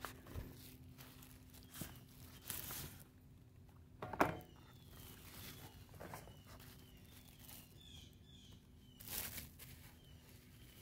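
Handling of a CD album's paper packaging and plastic wrap: scattered soft rustles and crinkles, the loudest about four seconds in.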